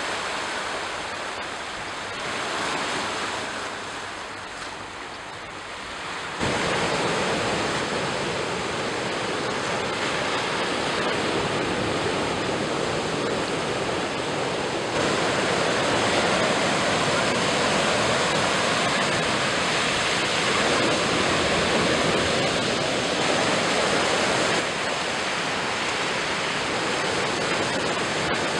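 Ocean surf, waves washing and breaking on the shore in a continuous rush of noise. The level jumps abruptly about six seconds in and changes again a few times after, as between separate recordings of the surf.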